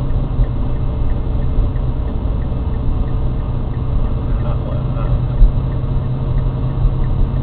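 Fiat car cabin noise with a fast, even ticking, about four ticks a second, over the steady running drone. It is the strange noise that has come back after an extensive gearbox repair, its cause unknown.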